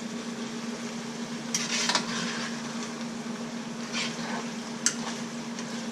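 Lo mein noodles sizzling softly in a hot skillet just after the electric burner is switched off, with a few scrapes and clicks of a fork stirring them against the pan over a steady low hum.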